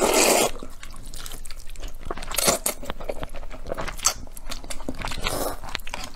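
Noodles slurped up from chopsticks in noisy draws: one at the start, another about two and a half seconds in and a third past five seconds. Between the draws are chewing and wet smacking clicks.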